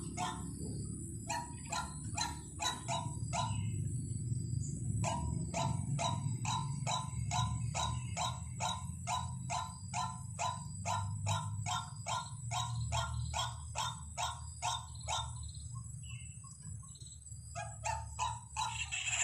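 White-breasted waterhen calling: long runs of the same short, harsh note repeated about three times a second, broken by brief pauses, over a steady low hum.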